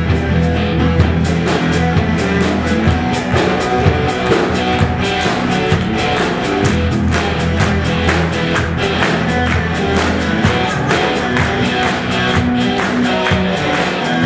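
Live rock band playing loudly: drums hitting steadily over bass and distorted electric guitar.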